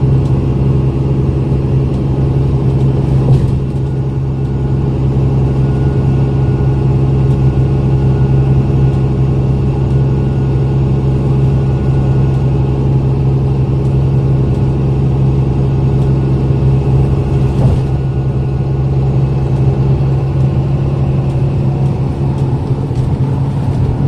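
Bus engine and road noise heard from inside the cabin at highway speed: a steady low hum with its overtones.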